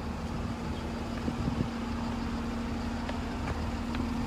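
Steady mechanical hum holding one constant low tone, with a few faint taps in the second half.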